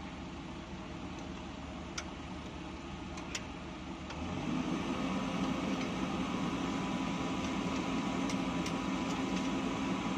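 Diesel engine of heavy earthmoving equipment running steadily, growing louder about four seconds in and then holding steady, with a few faint clicks.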